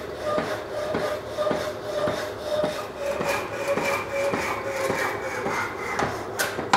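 Rapidor Manchester power hacksaw cutting through steel bar, its blade rasping back and forth at about two strokes a second. A loud clank comes near the end, and the sawing stops after it.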